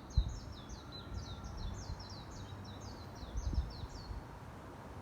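Songbirds singing a fast series of high, downward-slurred notes, about five a second, which stop about four seconds in. A few low thuds sound under the song, the loudest just after the start.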